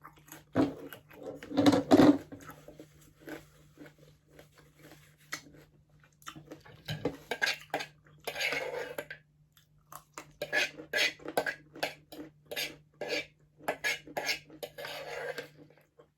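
Cutlery clinking and scraping against a plate, mixed with chewing, as crispy pata (deep-fried pork knuckle) is eaten in a series of short, irregular clicks and scrapes.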